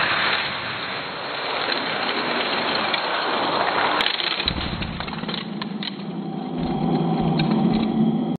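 Die-cast toy cars rolling down a plastic drag track, an even rushing noise, with a sharp click about four seconds in as they reach the finish-line gate, then a few lighter ticks.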